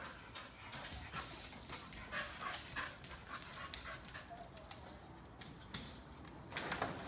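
Dog panting and whimpering in short repeated breaths.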